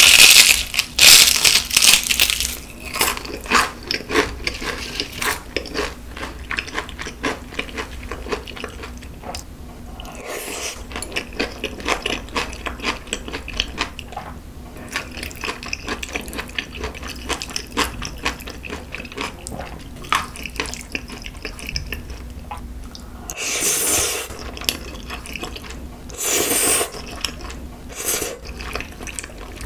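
Close-miked eating: a loud crunch as a crispy fried chicken piece is bitten, then steady crunchy chewing with many small crackles. Near the end come two longer slurps of noodles.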